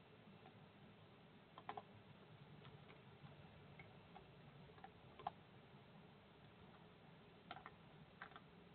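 A cat eating from a plastic tub: faint, scattered clicks, the sharpest about five seconds in, over a faint steady hum.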